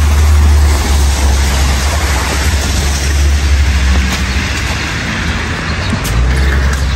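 City street traffic on a wet, slushy road: cars passing with a hiss of tyres, over a heavy steady low rumble.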